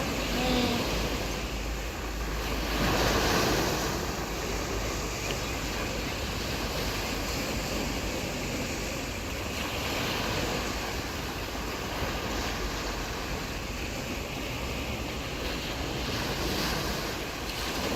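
Sea waves breaking and washing up a beach in a steady surf, swelling and easing, the loudest wash about three seconds in. Wind buffets the microphone with a low rumble.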